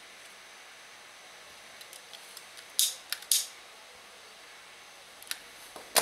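A few small clicks from wooden matches being handled, then two short scratchy rasps about three seconds in as a disposable lighter's spark wheel is flicked to light a match. A sharp tap near the end, as the plastic lighter is set down on the wooden bench.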